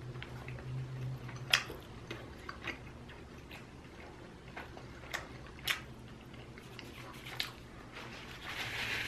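Close-miked chewing of fried, breaded food, with a handful of sharp crunches and mouth clicks spaced a second or more apart, over a low steady hum.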